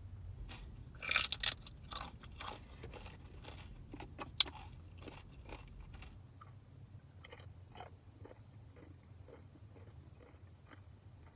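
Close-up mouth sounds of a person biting and crunching fresh tortilla chips: a run of loud crunches in the first two and a half seconds and a sharp crunch a little over four seconds in, then quieter chewing.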